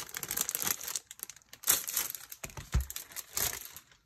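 Crinkling and rustling of paper and packaging as planner covers are handled, in three bursts with a soft low bump about two-thirds of the way through.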